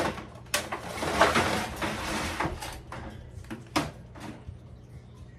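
Plastic supplement jars and an aluminium foil tray being handled on top of a wire dog crate: a knock, about two seconds of rustling, then a sharp knock about four seconds in.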